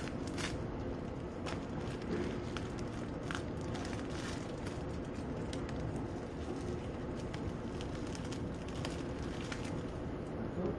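Plastic film wrapper of a seaweed-wrapped rice ball being peeled off by hand, giving scattered crinkles and crackles over steady background noise.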